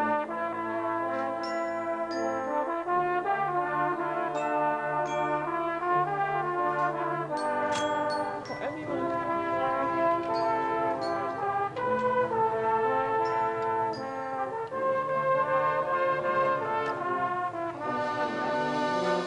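Brass band music: trombones, horns and cornets playing held chords that change every second or so.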